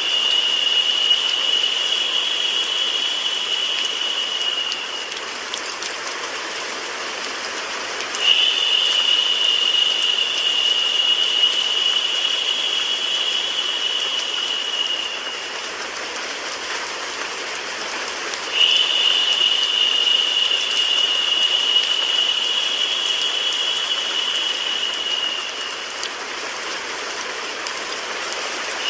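Steady hiss of rain sound mixed with white noise. A brighter, higher hiss cuts in sharply about every ten seconds, lasts several seconds and fades away, repeating evenly.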